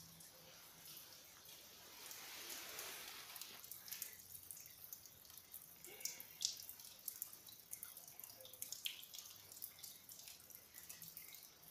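Faint water dripping in irregular single drops, over a light hiss.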